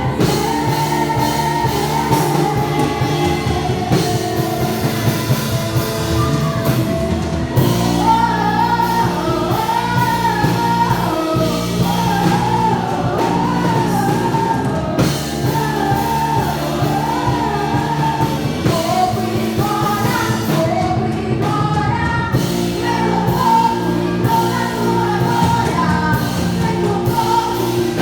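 Live worship music: singing over a band with drums, in a large hall.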